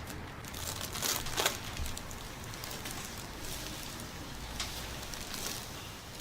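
Rustling and crinkling of clothing and the treatment table's cover as the chiropractor's hands work over the patient's body, with a couple of louder swishes about a second in.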